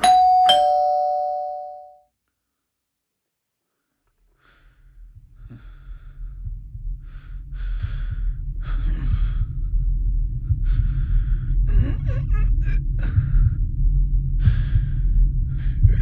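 A two-note chime, ding-dong, struck at the start and ringing out over about two seconds. After a short silence a low rumble fades in and builds steadily, with breathy gasps and a few clicks over it.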